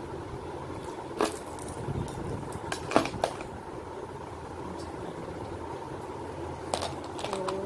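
Imitation metal jewellery (a stone-set pendant and earrings) being handled, giving a few light clicks and clinks, the sharpest about three seconds in. A steady hum runs underneath.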